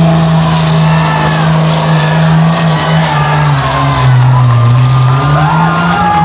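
Pulling tractor's engine running hard under full load as it drags the weight-transfer sled. Its steady drone sags lower in pitch about three and a half seconds in, then climbs back near the end.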